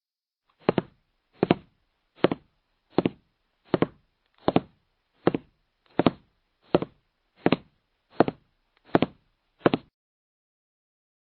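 A dozen evenly spaced knocks, about one every three-quarters of a second.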